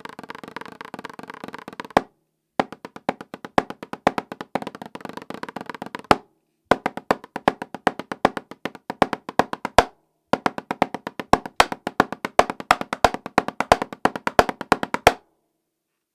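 Drumsticks playing rapid strokes on an 8-inch Remo practice pad with a coated Ambassador drum head, a sharp, fairly loud tapping with a short ring. The playing comes in four runs, split by brief pauses, each closing on a louder accent, and stops shortly before the end.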